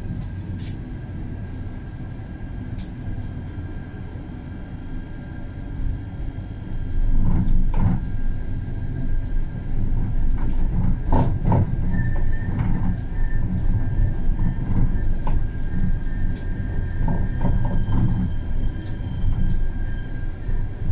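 Alstom Citadis tram running, heard from the driver's cab: a steady low rumble that grows louder about seven seconds in, with repeated knocks and clatter from the wheels on the rails and a thin steady whine from the drive, a higher whine joining near the end.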